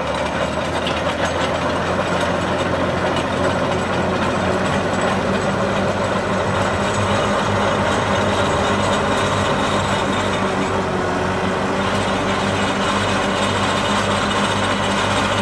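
Massey Ferguson tractor's diesel engine running steadily, driving a twin-auger hole digger as the augers bore down into the soil.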